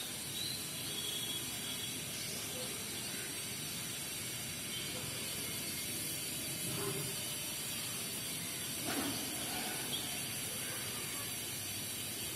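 Steady background hiss of outdoor ambience, with a few faint short sounds in the middle, the clearest about nine seconds in.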